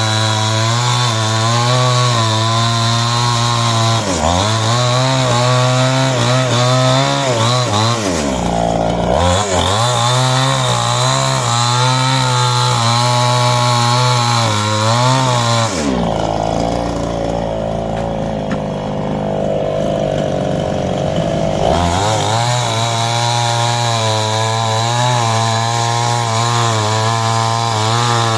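Small two-stroke chainsaw running at high revs while cutting a tree at its base. The engine pitch dips briefly about four and about eight seconds in, drops to a slower, duller run for several seconds around the middle, and then revs back up.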